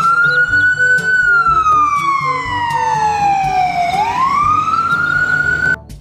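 Ambulance siren wailing: the tone rises, falls slowly over about three seconds, rises again and holds, then cuts off suddenly near the end.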